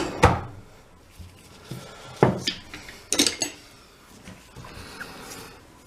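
Small metal parts of a disassembled air impact wrench clinking and knocking as they are handled on a workbench: a handful of sharp clinks, the loudest a little after two and three seconds in, then a brief faint rubbing.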